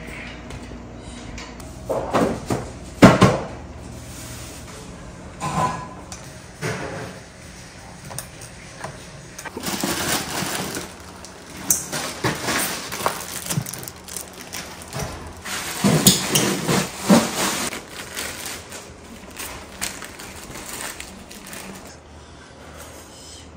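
Intermittent clatter and knocks of kitchen containers and utensils being handled on a counter, with the loudest knock about three seconds in.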